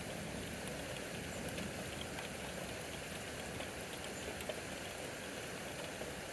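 Steady rain from a thunderstorm, with scattered faint ticks of single drops.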